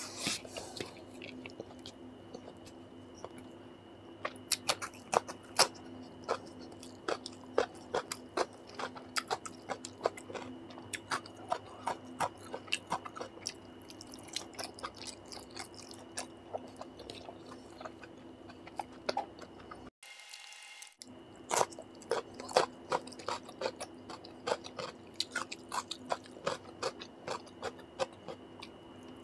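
Close-miked eating sounds of a man chewing mouthfuls of rice and curry taken by hand: wet chewing with a quick run of sharp mouth clicks and smacks, over a steady background hum. The sound cuts out for about a second roughly two-thirds of the way through.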